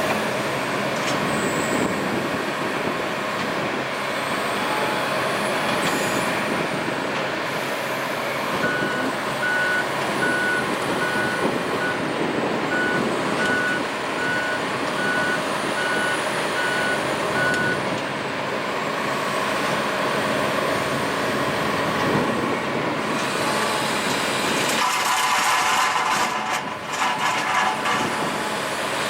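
Heavy excavator engine running steadily under load. In the middle a reversing alarm beeps about twice a second for some nine seconds. Near the end a harsher, rattling clatter sets in.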